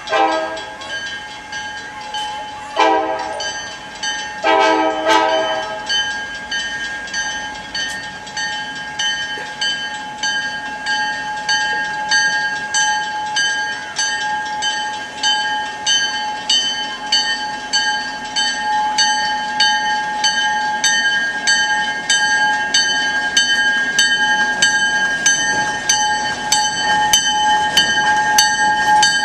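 Diesel locomotive approaching: its air horn sounds three blasts in the first six seconds, the last one the longest, while its bell rings steadily and grows louder as the locomotive draws near.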